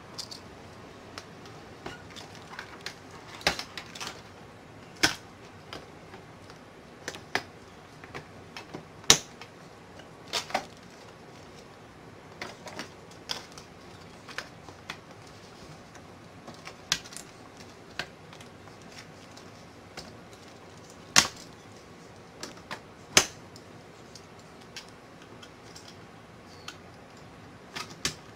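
Irregular sharp clicks and taps over a steady low hiss, coming at uneven intervals; a few stand out louder, about five seconds in, around nine and ten seconds, and twice past the twenty-second mark.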